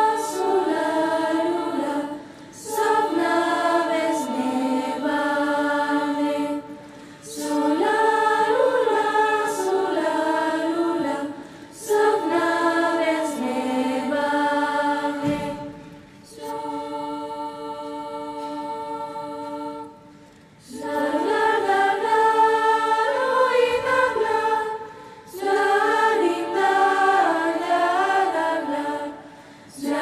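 Youth choir singing in several parts, in phrases of a few seconds each with short breaks between them. A softer, held chord comes near the middle.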